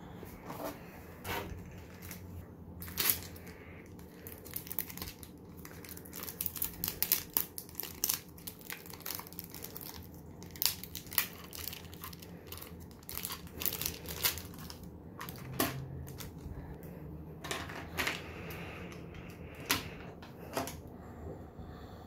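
Thin clear plastic bag crinkling as it is handled, with many sharp crackles, densest through the middle.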